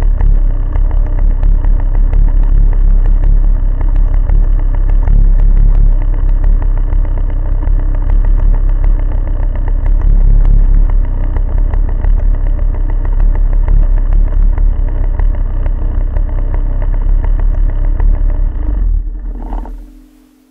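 Snowmobile engine running loudly and steadily, then dying away quickly near the end.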